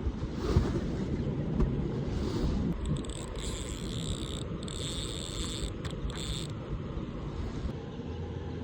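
Wind buffeting the microphone, a steady low rumble, with a higher hiss coming and going in the middle of the stretch.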